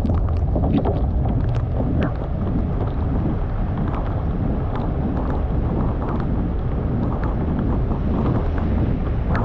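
Car driving on a wet road in heavy rain: a steady low rumble of road and wind noise under a wash of rain and tyre hiss, with a few sharp taps in the first two seconds.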